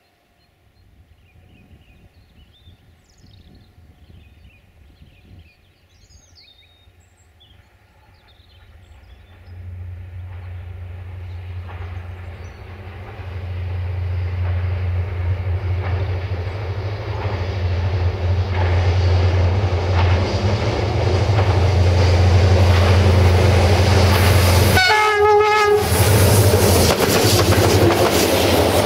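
Diesel-hauled passenger train approaching: a low, steady engine drone builds up and grows much louder from about ten seconds in. A short horn blast sounds near the end, then wheels clatter on the rails as the coaches pass close by. Birds chirp faintly at first.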